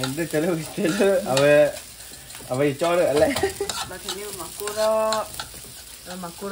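Fried rice sizzling in a nonstick frying pan while a metal fork stirs and scrapes it. Each stroke of the fork draws a short, wavering squeak from the pan.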